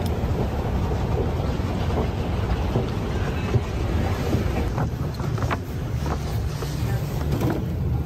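Steady low rumble and hiss of a busy store's background noise, with a few faint clicks in the second half.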